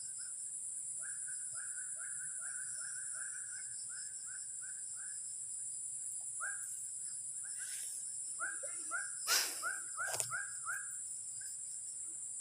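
An animal, most likely a bird, calling in rapid series of short rising notes, about three a second, over a steady high-pitched insect-like buzz. Two sharp knocks come a little after nine and ten seconds in.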